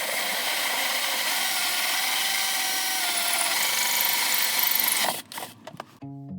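A power tool running steadily at full speed for about five seconds, then stopping, followed by a few short clicks.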